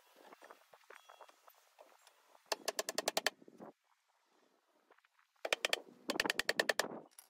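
A hammer drives nails into the pine boards of a wooden box lid in rapid runs of sharp blows, about ten a second. The first run comes about two and a half seconds in, and two more follow close together near the end.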